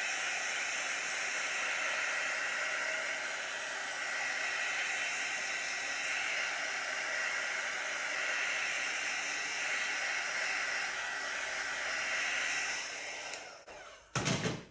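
Heat embossing tool blowing a steady rush of hot air over wet acrylic pour paint to pop bubbles and bring up cells. The air cuts off near the end, followed by a sharp knock.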